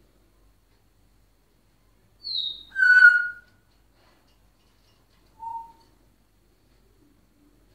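African grey parrot whistling and calling: a short falling whistle, then straight after it a louder held call about 3 seconds in, and a brief, fainter lower whistle a couple of seconds later.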